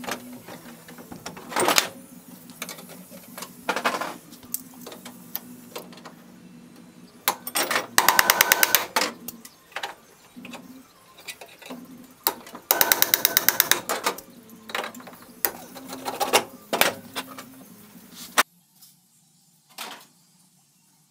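Handheld pneumatic air tool firing in two rapid hammering bursts of about a second each, several seconds apart, with scattered clicks and knocks of tools being handled over a steady low hum.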